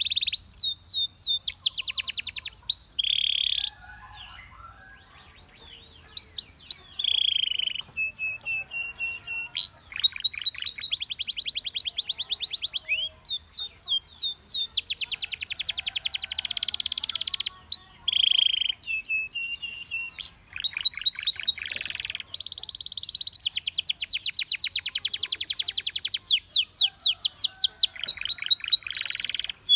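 Domestic canary singing a long, loud song of rapid trills and fast repeated rising notes, broken by a short quiet pause about four seconds in.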